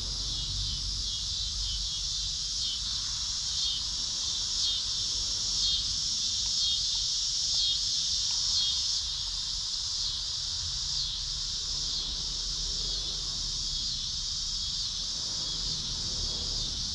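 Crickets chirping in a dense chorus, a rapid pulsing trill that swells and fades in phrases of about a second.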